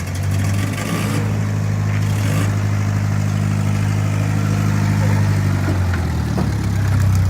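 Restored Ford Model T's engine running steadily at one speed, a continuous mechanical hum.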